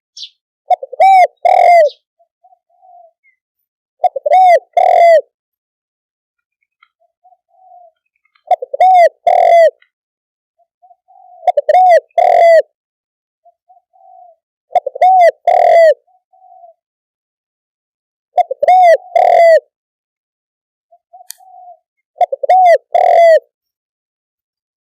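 Spotted dove cooing. It gives a repeated phrase of a few short, arched coos about every three and a half seconds, seven times, with a faint single coo between phrases.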